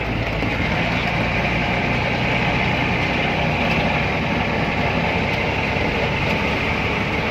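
Steady engine and road noise of a moving vehicle, heard from inside the cab.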